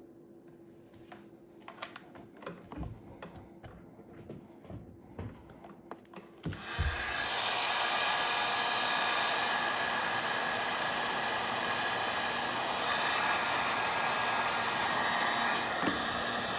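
A few small clicks and taps of handling. Then, about six seconds in, a heat gun switches on and blows steadily, shrinking heat-shrink tubing over a freshly soldered wire joint.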